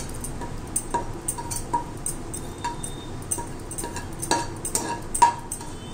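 Flat steel spatula clinking and scraping against a small black kadai while bay leaves fry in oil. The clinks come irregularly, about two to three a second, each with a short metallic ring; the loudest is about five seconds in.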